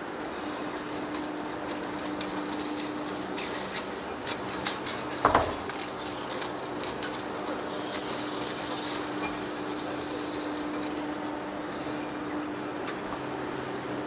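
Heavy-duty face lathe running with a steady mechanical hum, with scattered metallic clicks and one louder clunk about five seconds in.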